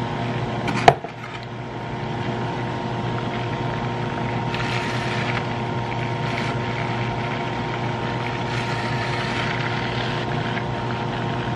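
BlendJet portable blender motor running steadily, its blades churning chicken salad mix as the jar is tipped, with one sharp click about a second in.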